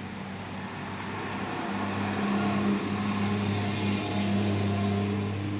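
Motor vehicle engine on the road, a steady low hum that grows louder about a second and a half in and holds, with general road traffic noise underneath.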